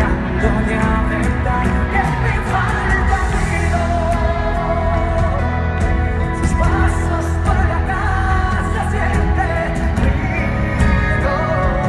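Live pop music from a concert sound system, with a band and a strong steady bass line and singing over it.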